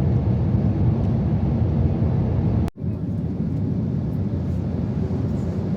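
Loud, steady low rumble of an Airbus A321neo's engines and airframe heard from inside the passenger cabin. It breaks off abruptly for an instant a little under three seconds in, then carries on.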